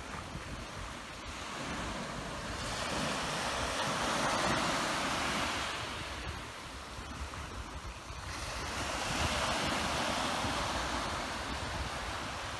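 Sea waves breaking and washing up a beach, two swells of surf a few seconds apart, with wind rumbling on the microphone.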